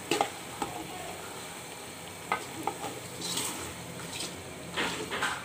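Wooden spatula stirring goat meat with spice paste in an aluminium pot, with scattered scrapes and knocks against the pot that cluster near the end. A faint steady sizzle runs beneath.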